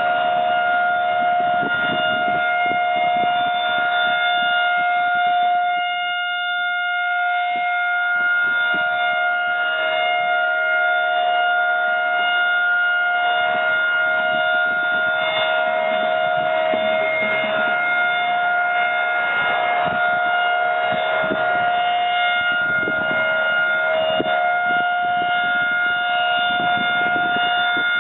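Federal Signal Model 2001 rotating electromechanical siren sounding the steady alert signal of its monthly test: one loud held tone that stays at a single pitch, with a brief dip in loudness about six seconds in.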